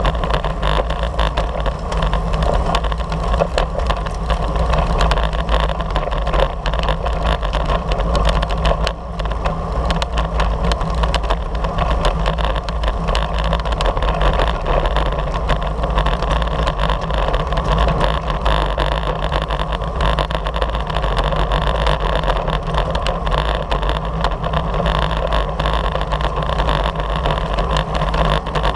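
Steady rush of wind over the microphone of an action camera mounted on a racing bicycle riding at speed in a group, a loud, deep rumble that never lets up.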